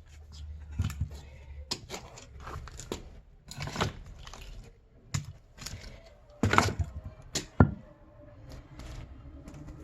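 Axe work on firewood: a string of irregular sharp wooden knocks and cracks, some coming in quick pairs, with the two loudest hits about two-thirds of the way through.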